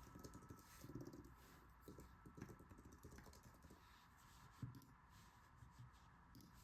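Faint computer keyboard typing: quick, irregular key clicks in short runs.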